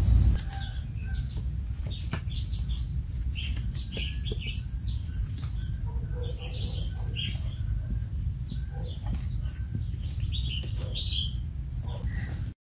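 Small birds chirping in short, frequent calls over a steady low rumble, with a few light clicks from dry sticks being handled.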